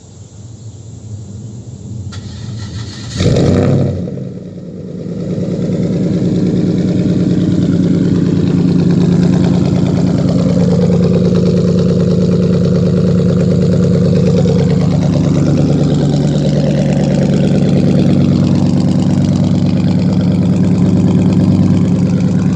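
Cadillac STS engine with a raw-sounding exhaust being started: a rising crank, a loud burst as it catches about three seconds in, then a steady loud idle.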